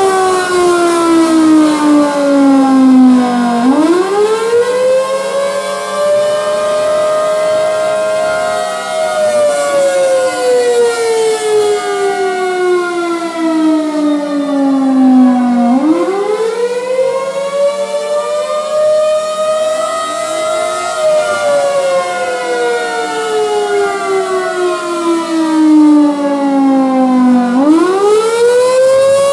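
Several outdoor warning sirens (a Thunderbolt 1000B, a Federal Signal 2001-130DC, a Federal Signal Modulator 6048 and a Model 2T) sound together in a tornado-warning wail. Their overlapping tones rise slowly, hold, then fall over about twelve seconds, twice, and a new rise starts near the end. The 2001-130 is not rotating because a fence has jammed its rotator.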